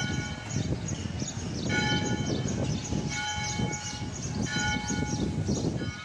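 Church bells ringing, with struck, fading tones repeating about every second and a half over a steady low background noise.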